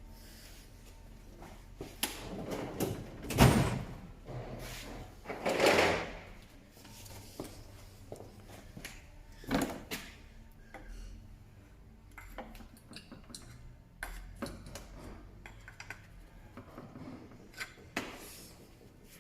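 Irregular metallic clunks, knocks and scrapes as a car gearbox, unbolted and resting on stands, is worked and levered to free it from the engine. The louder scraping shoves come in the first ten seconds, followed by lighter clicks and taps.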